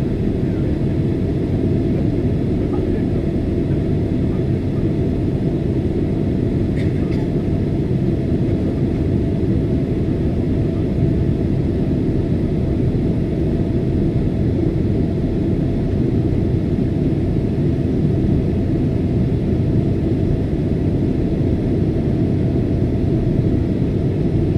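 Steady cabin noise inside a passenger aircraft in flight: engine and airflow noise, an even low rumble that does not change.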